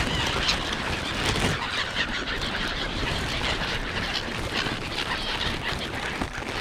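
A feeding flock of gulls and crows calling over and over, many short overlapping cries, over a steady rush of street traffic.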